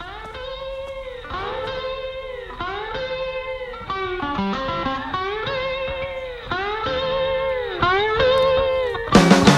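Blues guitar playing a repeated sliding, bending phrase about once a second as a song's intro. Just before the end the full band comes in with drums and bass.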